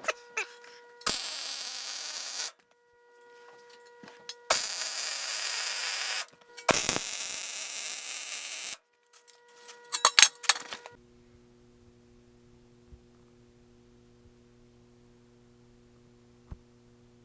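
Electric welding arc crackling and hissing in three bursts of about two seconds each, stitch-welding the seam of a rolled 1/16-inch sheet steel cylinder, over a steady electrical hum. After some clicks about ten seconds in, only a quieter, lower machine hum remains.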